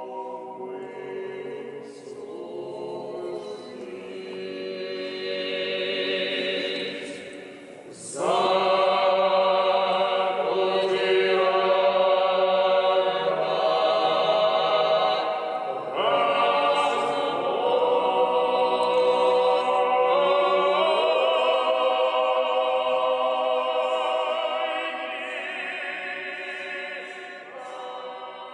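Male vocal quartet singing a cappella in close harmony inside a large stone church. The chord swells loudly about a third of the way in and again near the middle, then softens near the end.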